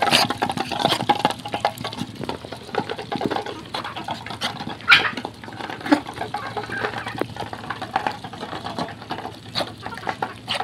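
A group of Muscovy ducks feeding together from a steel bowl: a rapid, dense patter of bills pecking and dabbling in the feed and clicking against the bowl.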